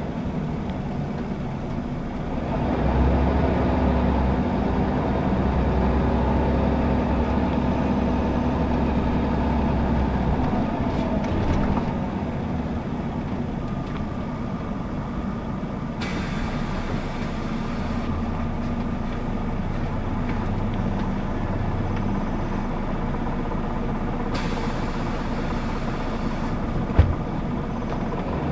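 Scania L94UB city bus's diesel engine running under way, heard from inside the passenger cabin with road and tyre noise. The engine pulls harder from a few seconds in and eases off after about twelve seconds. There is a single sharp click near the end.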